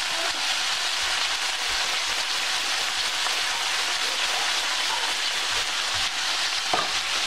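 Beef strips, snow peas, bell pepper and onion sizzling steadily in a stainless-steel skillet on high heat. One light knock near the end.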